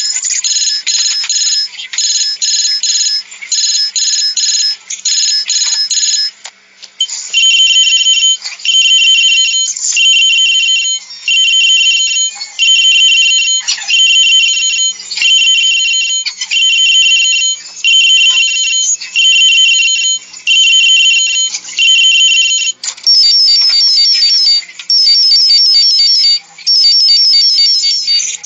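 High-pitched electronic phone ringtones playing one after another. First comes a quick chirping pattern. About seven seconds in it changes to a ring repeating roughly once a second, and about 23 seconds in to a fast trill.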